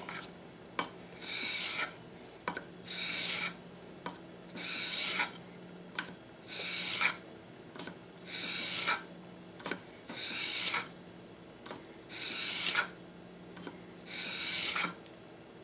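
The steel blade of a Craftool leather splitter is stroked flat across 320-grit wet/dry sandpaper on a granite block to sharpen its edge. It makes eight even scraping strokes, about one every two seconds, with a faint click between strokes.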